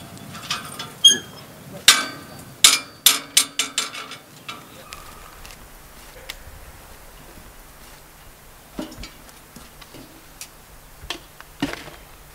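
Sharp knocks and clatters: several loud ones in the first few seconds, including a quick run of about six around three seconds in, then a few scattered single knocks.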